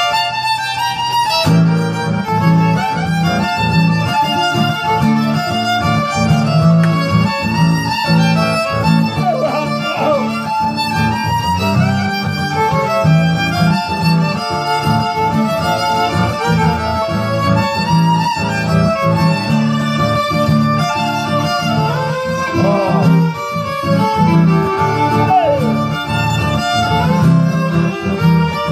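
Violin and acoustic guitar duet playing a Panamanian cumbia. The bowed violin carries the melody, with a few sliding notes, over a steady guitar accompaniment.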